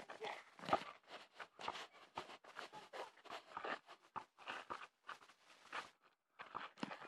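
A quick, irregular string of short rustling and scuffing noises, with a brief pause about six seconds in.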